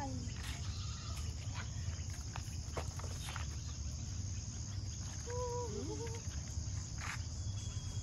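Steady high chorus of insects chirping, over a low rumble, with scattered light clicks. A brief wavering call comes about five seconds in.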